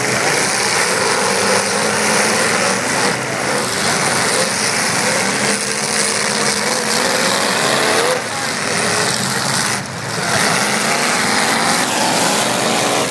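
Several V8 demolition derby cars running at once at high revs, their engine notes rising and falling as the drivers rev and ram.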